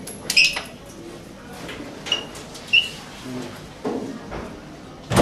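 Metal school lockers being handled: clicks and clanks of the steel doors and contents, with a few short high squeaks, and a sharp metallic bang near the end as a locker door is shut.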